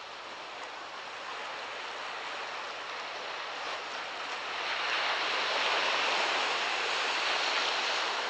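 Sea surf washing onto a beach: a steady hiss of breaking waves that swells louder about halfway through.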